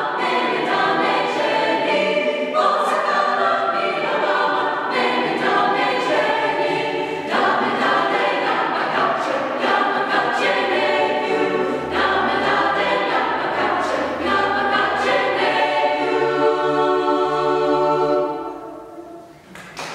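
Mixed SATB choir singing a cappella, moving through sustained chords. The closing chord is held for a few seconds and fades out near the end.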